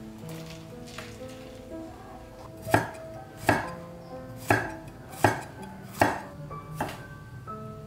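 Knife chopping food on a cutting board: six hard, separate chops about three-quarters of a second apart, starting about a third of the way in, over soft background music.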